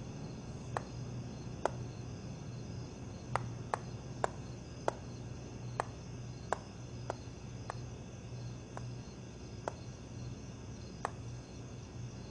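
Footsteps of hard-soled shoes on a hard floor: about a dozen sharp clicks at an uneven, slow walking pace over a steady low hum.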